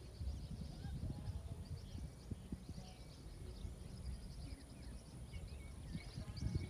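Several birds chirping and singing, with many short high calls overlapping, over an uneven low rumble and thumping noise.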